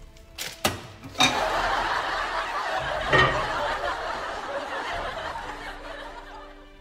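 Sitcom-style laugh track: a studio audience bursts into laughter about a second in, swells again, then dies away. Two sharp clicks come just before it.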